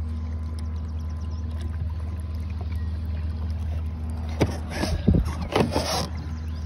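Bixby electric kayak motor running steadily at speed, a low hum with a steady higher tone over it. About four seconds in comes a cluster of knocks and scrapes lasting about two seconds.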